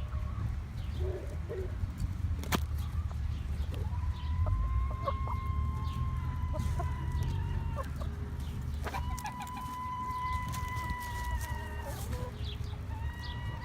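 Chickens calling, with a rooster crowing: two long, drawn-out crows starting about four and nine seconds in, each trailing off at the end, and a third beginning near the end. Scattered clucks and clicks and a steady low rumble sit underneath.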